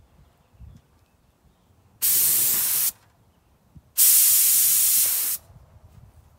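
Compressed-air paint spray gun with a gravity-feed cup, triggered in two short bursts of hiss, about a second and then about a second and a half long, as it sprays paint onto bolts.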